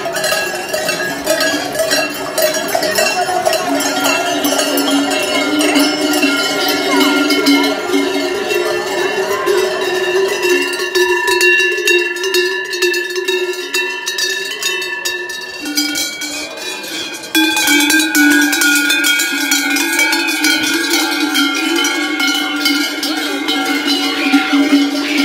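Many large cowbells clanging together without pause, their overlapping tones ringing over one another. The clanging thins out around the middle and swells back suddenly about two-thirds of the way through.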